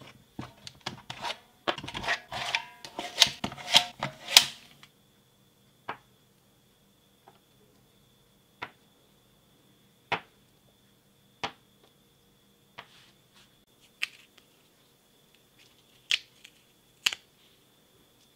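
A clatter of hard clicks and knocks for the first five seconds as 18650 lithium-ion cells are pulled from a charger's spring-loaded slots and set down, then single light clicks and taps every second or two as the cells are handled and touched with multimeter probes. A faint steady high whine runs underneath.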